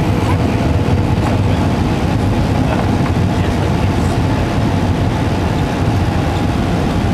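Steady cabin noise inside an Airbus A320-232 on approach: a loud, even rumble of airflow and its IAE V2500 engines, with a few faint steady tones running through it.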